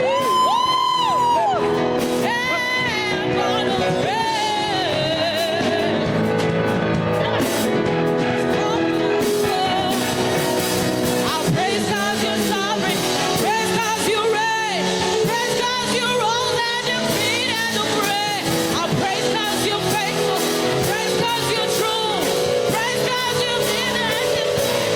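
Live gospel singing: a solo voice holding long notes with vibrato over a band's accompaniment.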